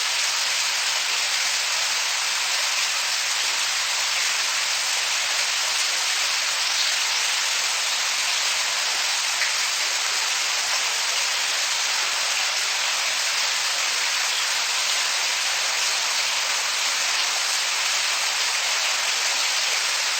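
Shower running: a steady spray of water, an even hiss with no pauses or changes.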